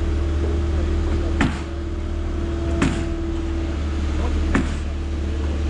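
Excavator's diesel engine running steadily with a steady whine, as the bucket teeth rake the bottom of a septic tank hole level. Three sharp knocks or clanks come at intervals of about a second and a half, and the whine stops near the end.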